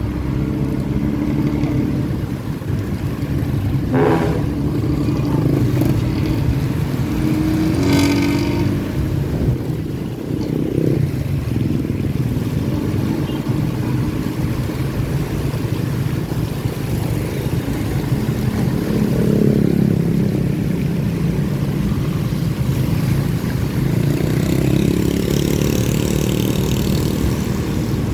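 Bus diesel engine running through a raspy, tinny 'ngorok' exhaust, the note typical of Cirebon-route buses, swelling several times as it accelerates. Two brief higher-pitched sounds stand out about four and eight seconds in.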